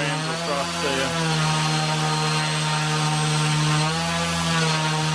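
Eachine E160 RC helicopter running at steady high throttle on a bench thrust test, its motors and main rotor giving a constant pitched hum with a noisy rush of rotor air. The tone holds steady, with a slight shift about four seconds in, as the helicopter keeps up steady thrust.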